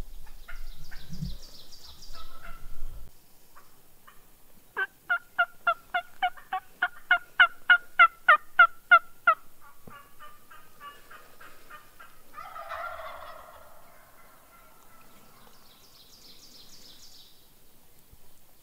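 A run of about sixteen turkey yelps, evenly spaced at roughly three or four a second and growing louder, followed a few seconds later by a single rolling gobble from a Merriam's turkey gobbler. A small bird chirps faintly near the start and again near the end, over a low rumble in the first few seconds.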